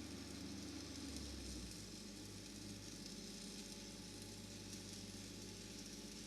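Stick (SMAW) welding arc on a pipe joint, crackling and sizzling steadily, with a steady low hum beneath.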